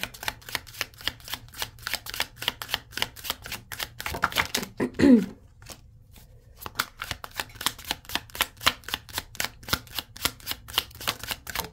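A deck of Golden Tarot cards being shuffled overhand by hand, with the cards slapping rapidly several times a second. The shuffling pauses for about a second just past the middle, then resumes. A brief vocal sound comes about five seconds in.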